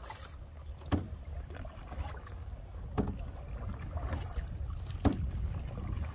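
Canoe paddle strokes: a sharp splash-and-knock with each stroke, three times about two seconds apart, over a steady low rumble.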